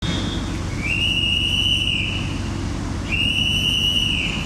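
Long, high whistle tones, each lasting over a second, sounding twice about two and a half seconds apart over a steady low rumble.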